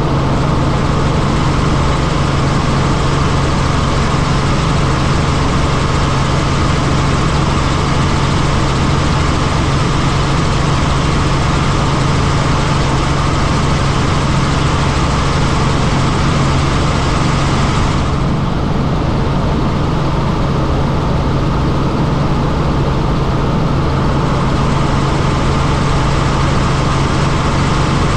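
Helicopter in flight: a steady, loud drone of engine and rotor with a strong low hum and constant rushing noise over it. The hiss in the upper range dulls for a few seconds about two-thirds of the way through.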